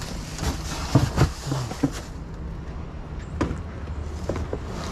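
Gear being loaded into a car boot: a plastic bag rustling, then several sharp knocks as a plastic bucket and a styrofoam box are set down, the loudest about a second in.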